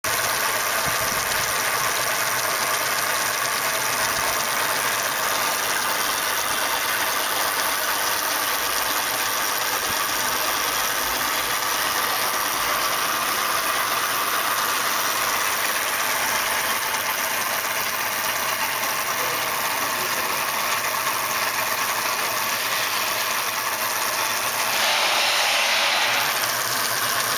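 Electric motors and gearing of a scale locomotive's six-wheel trucks running on a test bench on rectified DC, the wheels spinning free with a steady whir. Near the end it briefly turns louder and higher.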